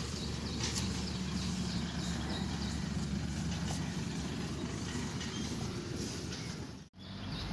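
Steady low outdoor background rumble with no distinct event in it. It drops out for a moment near the end.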